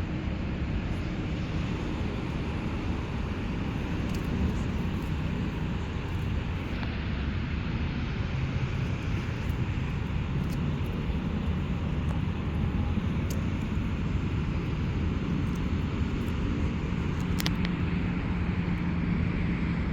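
Steady low vehicle rumble that holds an even level throughout, with no distinct passes or impacts.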